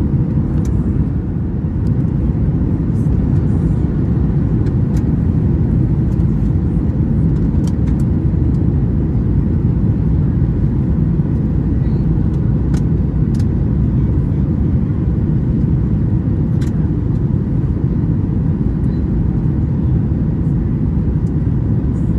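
Steady low rumble inside the cabin of a Boeing 737-800, the engines and airframe heard from a window seat, with a few faint ticks.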